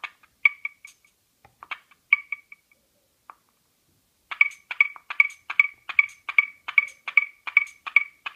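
Korg Volca Beats analog drum machine playing one bright, pitched percussion voice, with no kick underneath. A few scattered hits come first, then a pause, and about four seconds in a steady run of hits begins at about two and a half a second, the sequencer clocked by an external MIDI clock.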